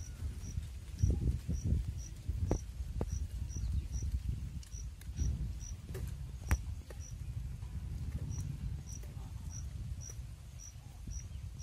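An insect chirping steadily, one short high chirp about twice a second, over a low rumble and a few soft clicks.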